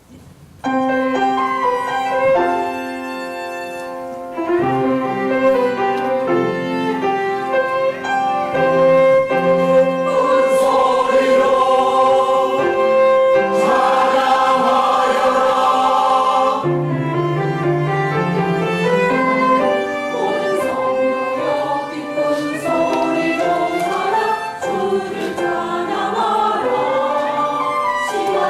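A church choir singing an anthem, starting about a second in.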